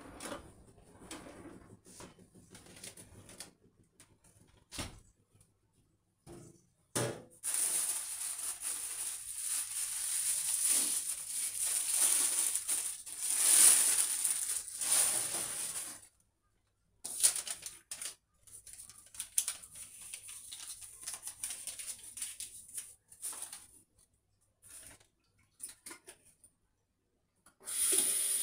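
Kitchen handling sounds: scattered clicks, knocks and light clatter of dishes and utensils, with a steady hiss that lasts about nine seconds in the middle. Near the end a kitchen tap starts running into a kettle.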